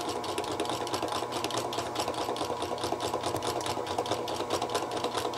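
Buchi Rotavapor R-200 rotary evaporator's rotation drive running at high speed, close to its 280 rpm maximum: a steady mechanical whir with rapid, even ticking.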